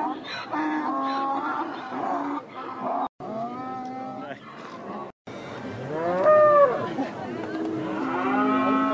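Cattle mooing: several long, drawn-out moos that rise and fall in pitch, the loudest about six seconds in.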